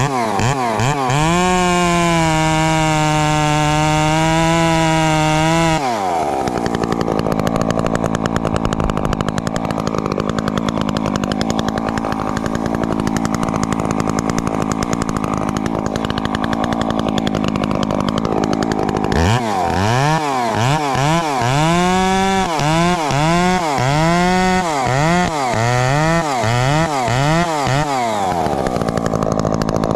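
Husqvarna 350 two-stroke chainsaw running at steady high revs, then sounding rough and noisy for about thirteen seconds as the chain works through wood. Near the end it is revved up and down about once a second, nine or ten times, before settling.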